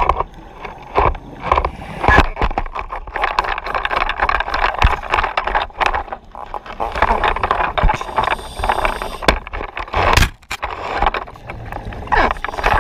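Underwater noise heard muffled through a camera housing: a diver's exhaled air bubbling in irregular bursts, with a few sharp knocks and scrapes as the gear bumps the reef.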